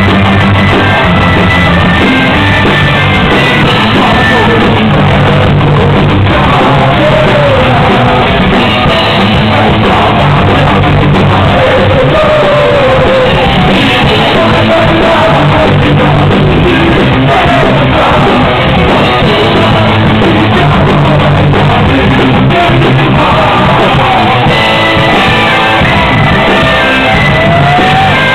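Folk metal band playing loud and continuously, with bagpipes, band instruments and sung and shouted vocals.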